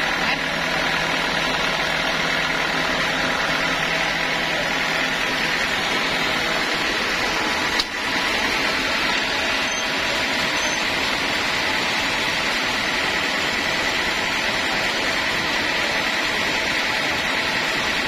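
Sawmill machinery running steadily, with one sharp click about eight seconds in.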